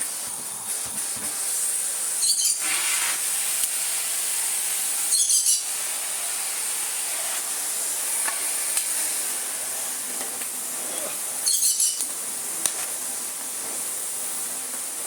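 Miele S5281 canister vacuum cleaner running steadily at below full power with a strong hiss of suction. It stays on now that its faulty power switch has been repaired. Three brief louder crackly bursts break in, about two, five and twelve seconds in.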